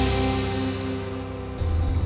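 Background music with sustained held notes, fading. About one and a half seconds in it cuts off abruptly into a low steady rumble.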